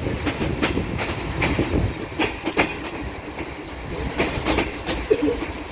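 Moving passenger train heard from aboard: a steady low rumble of wheels on the track, with irregular sharp knocks as the wheels clatter over rail joints and points.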